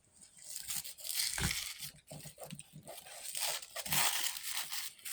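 Wrapping of a small package being torn open and crinkled by hand, a crackly ripping and rustling that builds from about a second in.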